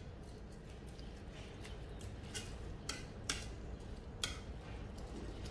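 Black plastic spatula mixing cooked rice in a rice cooker's non-stick inner pot: soft scraping and scuffing through the rice, with four sharp clicks from about two seconds in as the spatula knocks the pot.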